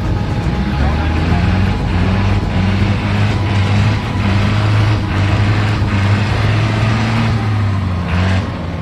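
Off-road 4x4's engine running steadily under load with a low, even hum and a few knocks; the engine note drops away near the end.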